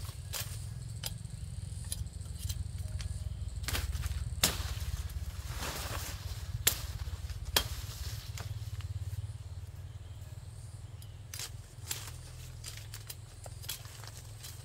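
Scattered sharp knocks and snaps of branches of a mật tang tree being chopped and broken, with a stretch of rustling in the middle and a steady low rumble underneath.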